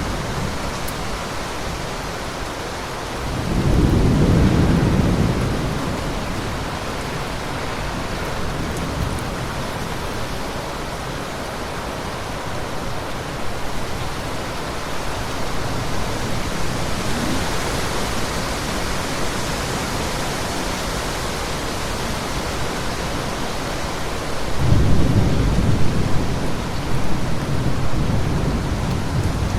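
Steady rain falling, with thunder rumbling twice: a low rumble lasting a couple of seconds about three and a half seconds in, and a longer one starting near the end.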